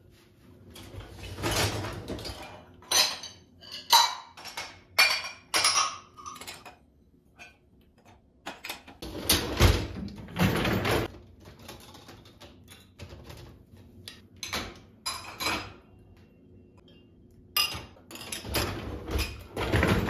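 Dishes and cutlery clattering and clinking as they are handled at an open dishwasher, in short bunches of knocks with quiet gaps between.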